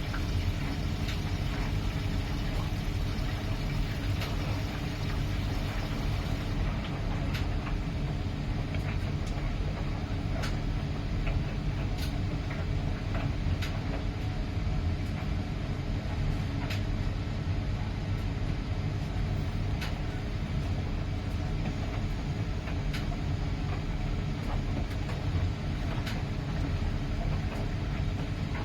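2011 Miele PW 6080 commercial washing machine running with a steady low rumble, and a faint click repeating about every one and a half seconds.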